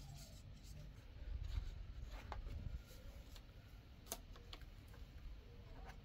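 Faint handling sounds of a plastic computer fan and bucket: scattered light clicks and knocks, with a low rumble from about one to three seconds in. Near the end, the rub of a felt-tip marker tracing on the plastic.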